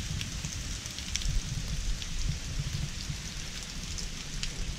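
Heavy rain falling steadily, with many small drop ticks close to the microphone over a low rumble.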